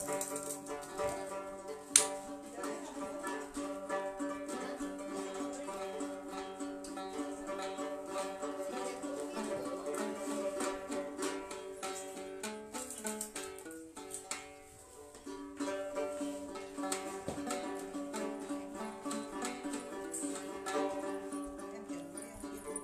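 Folk tune played on a plucked string instrument, with a sharp knock about two seconds in and a short dip in the playing around the middle.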